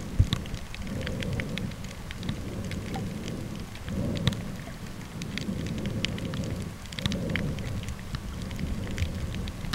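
Underwater sound through a camera sealed in a plastic bag housing: a dense, irregular crackle of sharp clicks over a low rumbling wash of water that swells every few seconds.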